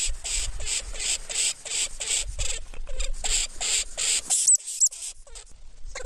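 Lemming calling: a quick run of short, scratchy squeaks, about four a second, with two brief high whistles about four and a half seconds in. The squeaks thin out shortly before the end.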